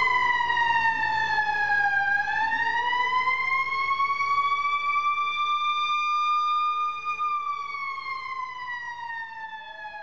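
Fire truck siren wailing: one tone slides down, climbs back up over a few seconds, holds, then slides down again, fading as the truck drives away.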